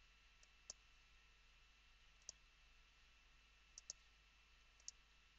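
Faint computer mouse clicks over near silence: single clicks about a second in, at two seconds and near five seconds, with a quick double-click near four seconds, as folders are opened in a file dialog.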